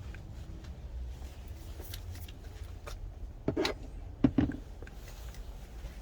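Two short knocks, about three and a half and four and a quarter seconds in, the second the louder, over a steady low rumble.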